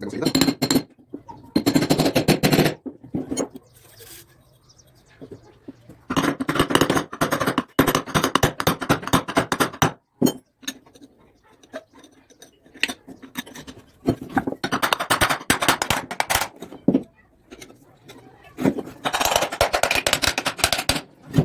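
Bursts of rapid metal-on-metal tapping, each lasting a second or two with short pauses between, six times over: parts being knocked into place while ball bearings are fitted back into a washing-machine motor.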